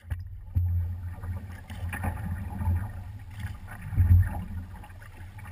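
Paddles dipping and swishing through the water of a big voyageur canoe under way, at an uneven rhythm. A low wind rumble on the microphone swells and fades throughout.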